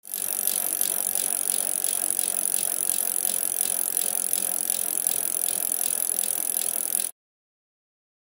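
Car cabin noise while driving: steady road and tyre hiss with a fast, regular rattling tick. It cuts off suddenly about seven seconds in.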